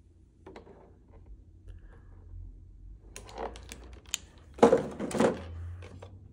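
Small clicks and rustles of plastic packaging and figure parts being handled during an unboxing, with two louder rustles about four and a half and five seconds in.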